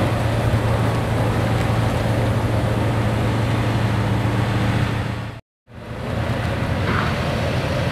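Ferrari 599 GTO's V12 running steadily at low revs with a deep, even hum, without revving. The sound cuts out for a moment about five and a half seconds in, then comes back.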